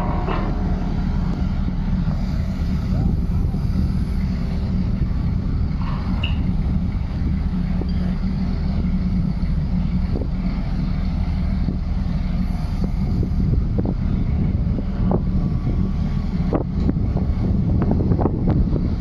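Steady low engine rumble with wind buffeting the microphone. A few short knocks come near the end.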